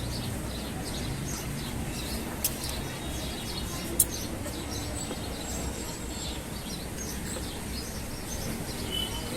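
Small birds chirping over and over in the background above a low steady hum, with two sharp clicks about two and a half and four seconds in.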